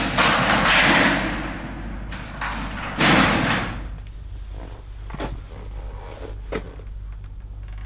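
Heavy bunker hatch or door scraping and thudding, two loud bursts about two seconds apart, followed by a few faint knocks as someone moves about.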